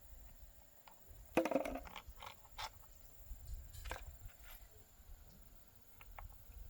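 Scattered light knocks and clicks, the loudest about a second and a half in, over a low rumble.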